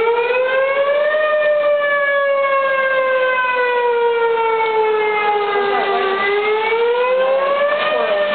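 Whelen outdoor tornado warning siren wailing, sounding a tornado warning. Its pitch rises for about a second, falls slowly for about five seconds, then rises again near the end.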